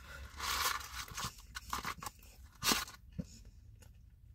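Close-up eating sounds: a few short crunches of fried food, along with rustling of a cardboard food carton as it is handled.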